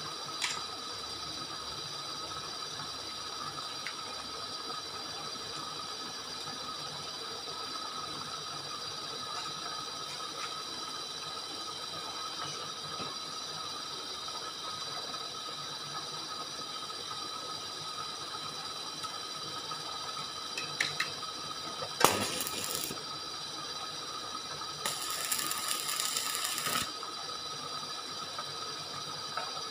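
Steady machine hum with constant tones, broken about two-thirds of the way in by a sharp crack and, shortly after, a hissing crackle of about two seconds: short stick-welding arcs tacking the nipple adaptor to the steel saddle.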